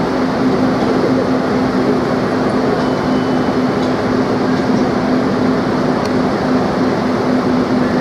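R32 subway train rolling slowly into an elevated station. Its wheels make a steady rumble on the rails, with a steady low hum under it.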